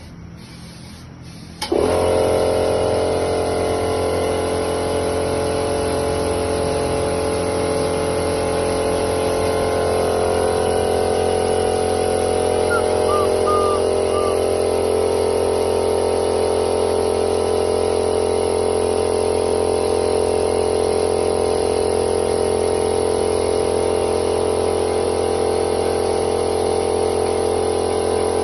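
A motor-driven machine starts abruptly and runs with a loud, steady hum, keeping an even pitch with no rhythm.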